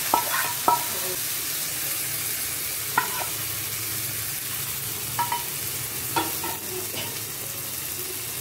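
Hot tadka (spiced tempering oil) sizzling steadily as it is poured and scraped onto curd rice in a steel bowl. A spoon clinks sharply on the metal pan and bowl about six times.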